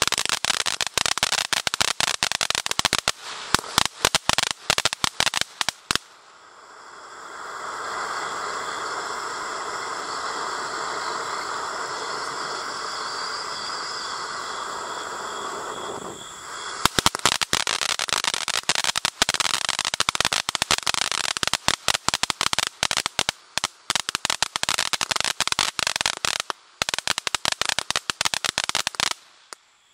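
Ground firework fountain burning: a dense crackle, which gives way about six seconds in to a steady hissing spray. About sixteen seconds in the hiss cuts off and the dense crackling returns, thinning out and dying away near the end.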